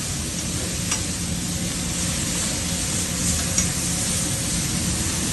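Meat, cactus paddles and vegetable strips sizzling steadily on a hot flat-top griddle, with a low hum underneath. There is a light click of a metal spatula about a second in.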